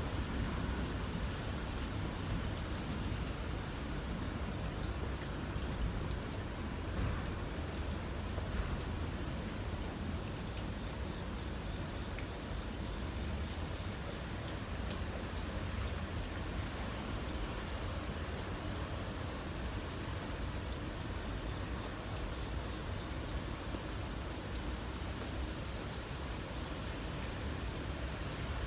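Crickets trilling in one continuous, unbroken high-pitched tone, over a steady low hiss of light rain.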